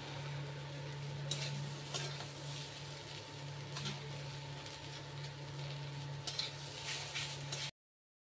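Ivy gourd frying in oil in a steel wok, sizzling steadily, while a metal spatula scrapes and knocks against the pan several times. A steady low hum runs underneath, and the sound cuts off suddenly near the end.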